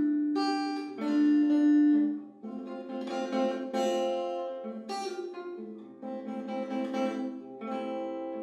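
Nylon-string classical guitar playing a slow song, its chords ringing. Long, steady held notes lie over the guitar and are loudest in the first two seconds.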